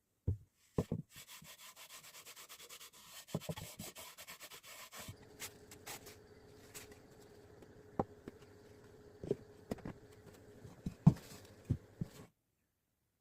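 Wood being rubbed or sanded with fast, even strokes for several seconds, then a faint steady hum broken by a series of sharp knocks of wood on wood, stopping abruptly near the end.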